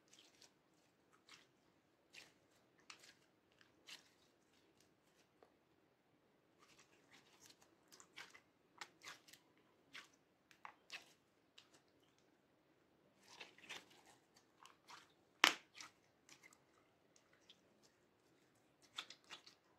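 Orange slime being squished, kneaded and stretched by hand, giving scattered faint crackles, clicks and small pops. One louder snap comes about three-quarters of the way through.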